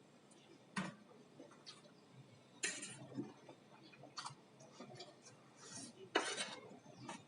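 Eating sounds: scattered clicks and clinks of utensils against a plate, with a few louder, short noisy sounds, about a third of a second each, near the middle and near the end.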